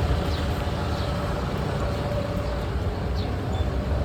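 Steady low rumble of street traffic, with vehicles running by.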